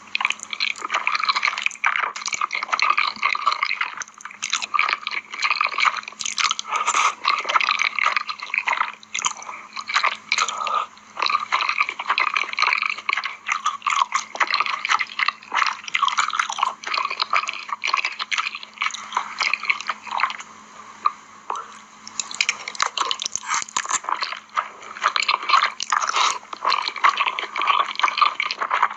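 Close-miked mouth sounds of a person eating spicy instant noodles with cheese: continuous wet chewing and squishy bites, with a few short pauses.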